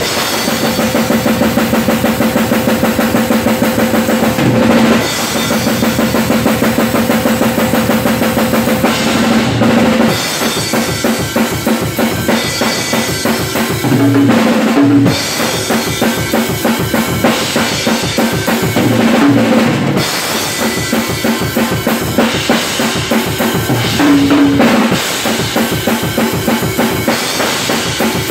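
Acoustic drum kit played at a fast tempo: rapid bass drum strokes under snare and tom hits, with cymbal crashes.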